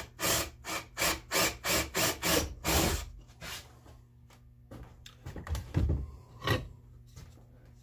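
A hand brushing drill shavings off a plywood board in quick, short strokes, about three a second, followed by a few slower rubs and knocks.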